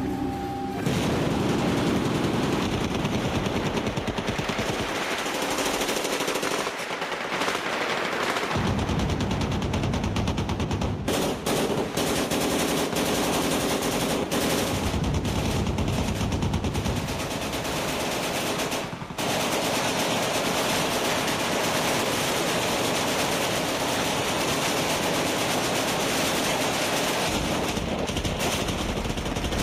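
Automatic machine-gun fire: long bursts running together into nearly continuous shooting, with only brief breaks.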